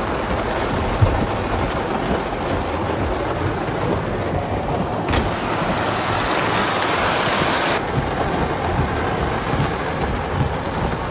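Torrential rain and floodwater rushing through a street, a dense steady wash of noise. About five seconds in, a louder, higher hiss starts suddenly, then cuts off abruptly nearly three seconds later.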